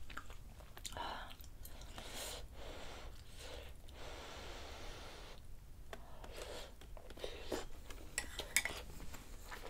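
Close-miked eating sounds: breathy mouth noises as a hot dumpling from the soup is taken off a wooden spoon and chewed. A few light clicks come near the end, from chopsticks and spoon against the bowl.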